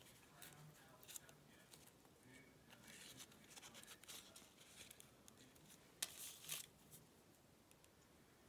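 Faint rustling of a piece of fabric being handled and picked at by fingers, with two sharp clicks about six seconds in.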